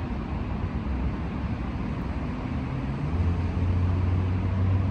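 Steady low rumble of road traffic, with a low, steady engine hum coming in about three seconds in.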